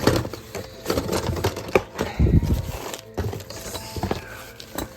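Parts and packing being handled and pulled out of a cardboard box: irregular rustling, clicks and knocks, with a heavier thump a little over two seconds in.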